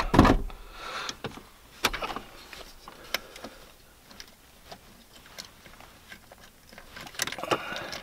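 Hands handling small parts and screws: a low thump at the start, then scattered light clicks and knocks, with a short cluster of knocks near the end.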